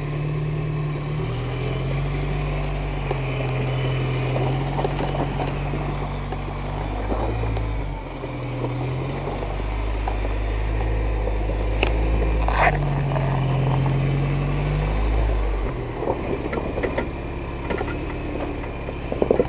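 Engine of a lifted off-road pickup running at low revs as it crawls over boulders, its pitch stepping up and down with the throttle. A sharp knock about twelve seconds in and a few more knocks near the end.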